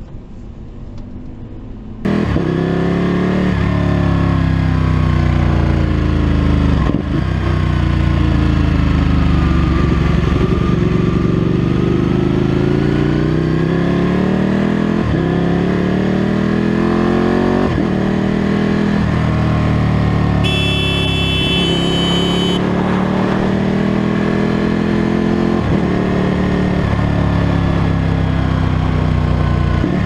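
Motorcycle engine accelerating hard through the gears: the revs climb and drop back again and again as it shifts up. A high-pitched tone sounds for about two seconds partway through.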